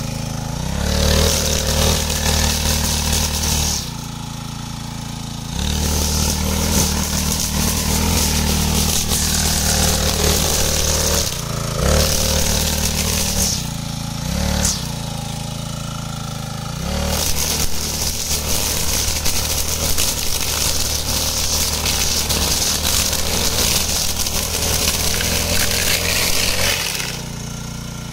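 Small four-stroke engine of a wheeled (trolley-type) brush cutter running at high revs as its spinning cutting head mows through tall grass. The engine sags several times and climbs back up, then eases off to a lower, quieter run near the end.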